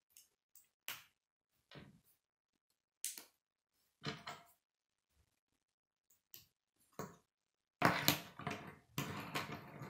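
Plastic K'nex rods and connectors clicking as they are snapped together, single sharp clicks a second or so apart. Near the end comes a longer rattling clatter of plastic pieces against a wooden tabletop.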